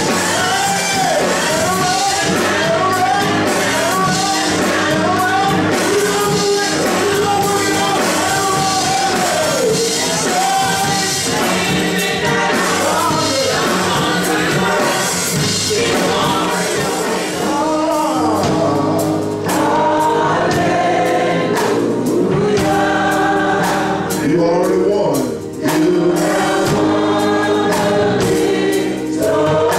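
Gospel choir singing with a band, drums keeping the beat under sustained low notes.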